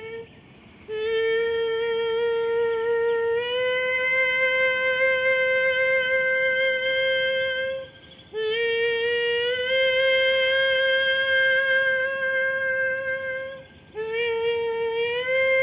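A woman's voice singing long wordless held notes, vocal toning for sound healing. The notes are broken by short breaths about a second in, at about eight seconds and near fourteen seconds, and each note steps up a little in pitch partway through.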